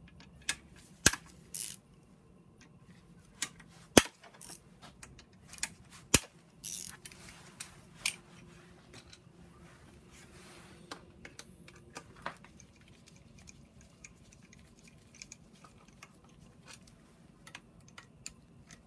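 Hand ratchet clicking in short runs as aluminum Torx bolts are backed out of the BMW N54 engine's oil deflector plate, with sharp metal clinks of the socket and bolts; the loudest clinks come about one, four and six seconds in.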